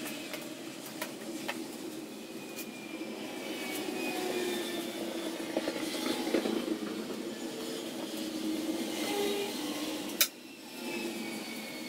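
Staple gun firing, one sharp snap about ten seconds in as staples go into the wooden frame to hold chicken wire, with a few lighter clicks and knocks earlier, over a steady background hum.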